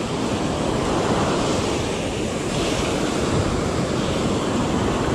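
Atlantic surf breaking and washing up the beach, a steady rushing.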